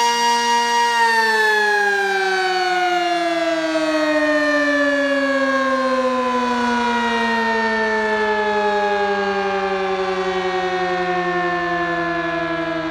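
Sentry 20V2T two-tone electromechanical warning siren holding its steady chord, then about a second in winding down. Its tones glide slowly and steadily lower as the rotor coasts.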